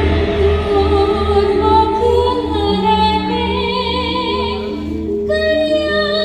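Music: a song with a female singing voice over a steady beat.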